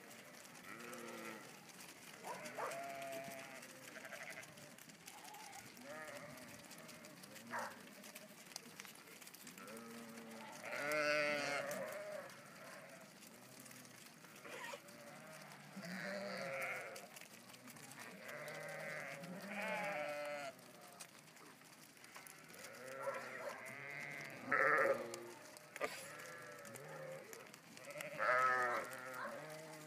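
A large flock of sheep on the move, bleating again and again. The wavering calls come one after another and sometimes overlap, with the loudest ones about eleven seconds in, around twenty-five seconds and near the end.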